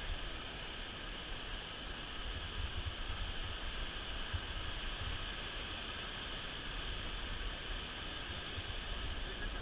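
Wind buffeting the microphone in uneven low gusts over a steady hiss of water.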